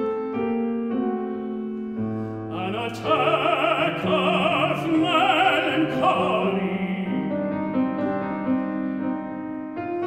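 Classical art song: a grand piano playing, joined about three seconds in by an operatic tenor singing loudly with wide vibrato. The voice drops out after a few seconds, leaving the piano alone.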